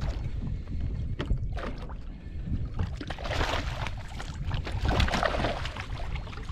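Water slapping against a bass boat's hull, with wind rumbling on the microphone. A louder rushing, splashy noise swells about three seconds in and lasts around two seconds.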